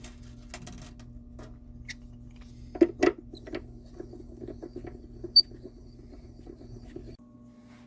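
Small clicks and taps of parts and tools being handled at a workbench, with two louder knocks about three seconds in and a sharp tick a couple of seconds later. A steady hum runs under them and stops suddenly near the end.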